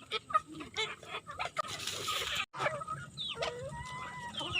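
Chickens clucking and calling: a run of short calls, then longer even-pitched calls near the end, with a brief silent break in the middle.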